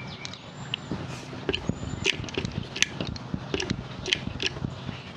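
Irregular sharp clicks and light metal knocks from a hand hydraulic cable-lug crimper being worked to crimp a lug onto heavy battery cable.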